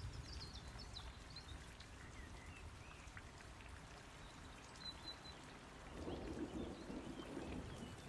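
Light rain falling steadily, with birds chirping in short calls during the first few seconds.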